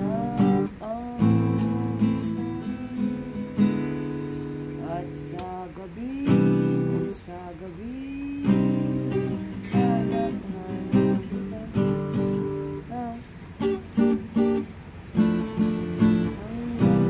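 Acoustic guitar being played, chords strummed and notes picked in short phrases, with some notes sliding in pitch.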